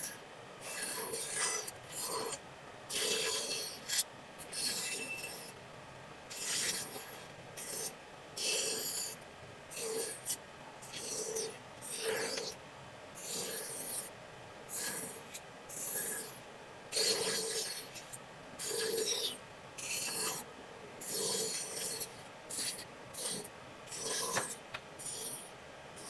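Repeated rasping strokes of a hand tool on wood, about one stroke a second, uneven in length and strength, as a wooden shovel is shaped by hand.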